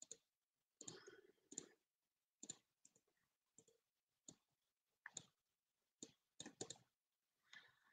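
Faint computer mouse clicks at an uneven pace, several in quick pairs, as points of a curve are placed one by one in CAD software.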